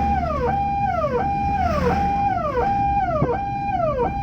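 Ambulance's electronic siren wailing in a fast repeating cycle: each cycle holds a tone briefly, then drops in pitch, about six times.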